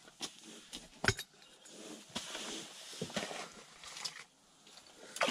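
Quiet rustling and handling noises as a fish is hauled up through a hole in the ice, with one sharp knock about a second in.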